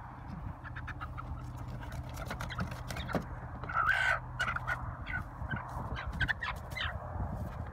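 Chickens clucking and calling in a string of short calls, the loudest about four seconds in, over a steady low hum.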